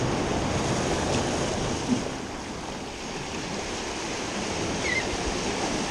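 Ocean surf washing and breaking over shoreline rocks, a steady rushing noise, with wind on the microphone. A single short knock about two seconds in.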